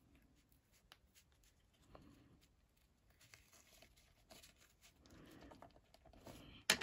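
Faint rustling and soft handling of ribbon and card as a ribbon trim is tied around a card, with a sharp click near the end.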